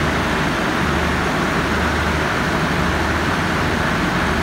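Steady low hum under an even rushing noise from a standing passenger train with its power on, its coach air-conditioning and generator car running.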